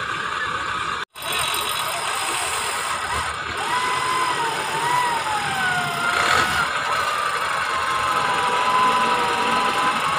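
Off-road 4x4 running in the mud. From about a third of the way in, a whining tone wavers up and down over the engine noise.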